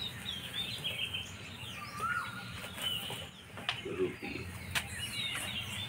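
Small birds chirping repeatedly with short, sweeping calls, with a few sharp clicks now and then.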